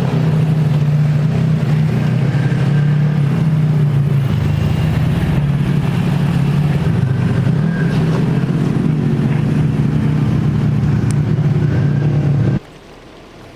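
Volkswagen Touareg's 3.0-litre V6 TDI diesel engine running steadily under load as it drives off-road, pitch rising and falling slightly. It cuts off abruptly about a second before the end.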